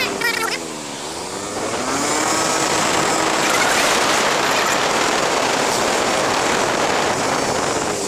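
Motorcycle engine and wind buffeting the microphone while riding. The engine note falls as the bike slows in the first second, then rises as it speeds up again, and then runs steadily.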